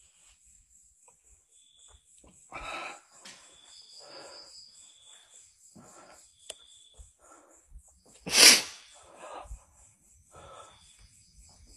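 A person's breathing close to the microphone, in short noisy breaths about a second apart, with one much louder, sharp burst of breath about eight and a half seconds in.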